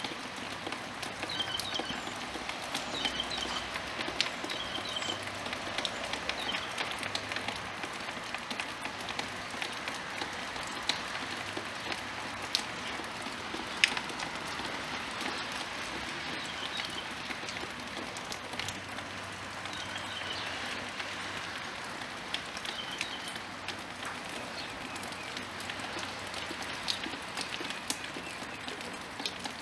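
Small yard birds giving short high chirps, in clusters of several, over a steady pattering hiss with scattered sharp ticks.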